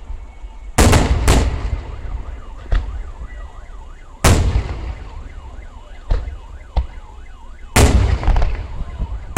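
Fireworks shells bursting overhead: five big booms, two close together about a second in, one about four seconds in and two near the end, with smaller cracks between. In the middle a warbling alarm tone rises and falls about three times a second.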